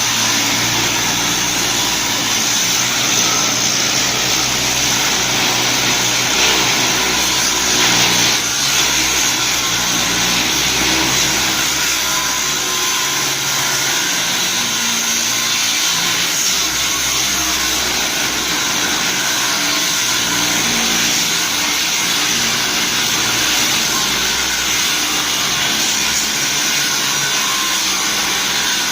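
An angle grinder's electric motor running at speed: a steady high-pitched whine with a rumble underneath.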